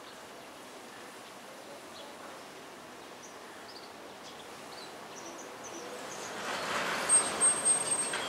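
Outdoor background with a few faint, high, short bird chirps, then a broad rush of noise swells up over the last two seconds with three sharp louder peaks and a thin high whistle on top.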